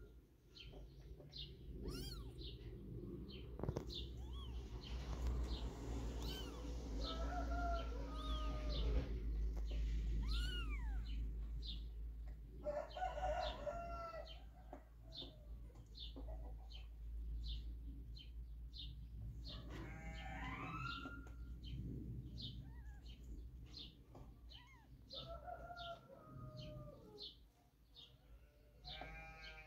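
Newborn kitten mewing in short high-pitched calls, about five of them, some rising in pitch. A faint high chirp repeats about twice a second behind it.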